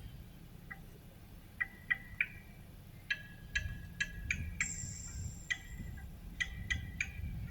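Bald eagle calling: short, high piping notes in small clusters of two to five, with a thin higher whistle near the middle, over a low steady hum.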